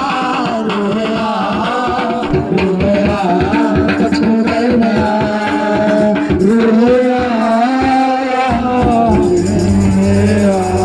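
Hindi Christian worship music with no sung words: a sliding melody line over busy hand percussion and shaker, with a bass part coming in near the end.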